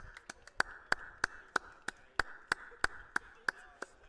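Steady, even clicking, about three sharp clicks a second, each with a brief high ring.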